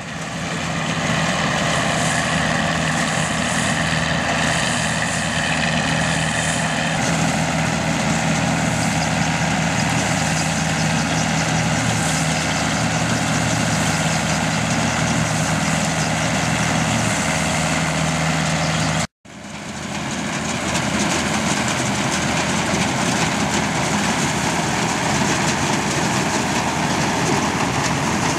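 1963 Aktiv combine harvester running steadily, its Perkins diesel engine and machinery going together. The sound cuts out abruptly about 19 seconds in and comes straight back.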